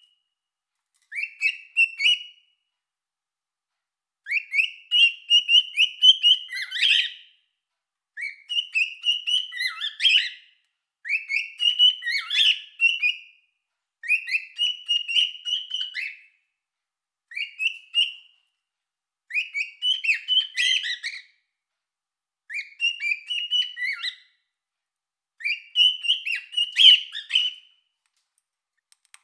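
Cockatiel singing: about nine or ten short phrases of chirpy whistled notes, each one to three seconds long, with short silent gaps between them.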